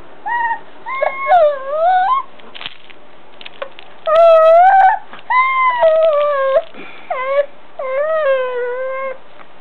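Baby fussing: about nine short, whiny cries in a row, each bending up and down in pitch, the loudest near the middle.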